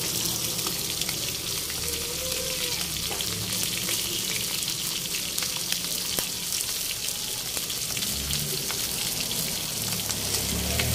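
Whole round scad (galunggong) frying in hot oil in a pan: a steady sizzle with fine, constant crackling.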